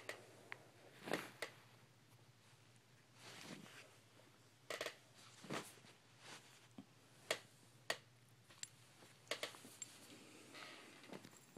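Quiet, irregular rustling of a bed comforter with scattered sharp taps and scratches as a Bengal cat plays and paws underneath it.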